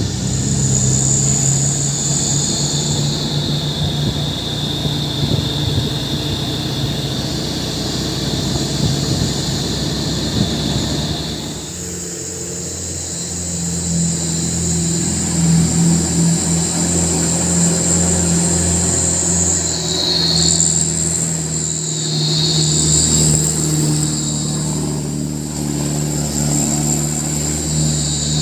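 Truck engine running steadily, its note changing about twelve seconds in, with a steady high-pitched whine above it.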